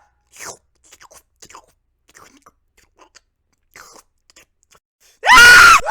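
Faint, scattered small clicks and smacks, then about five seconds in a loud, high-pitched scream with a bending pitch, lasting about half a second, dubbed in place of a cat's yawn.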